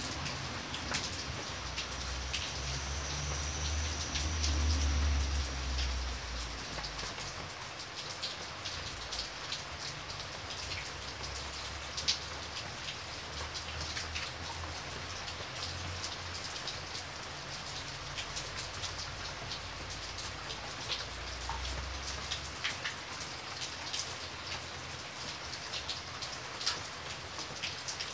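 Steady heavy rainfall, with many individual drops striking sharply throughout. A soft low rumble swells and fades a few seconds in, and returns briefly about three quarters of the way through.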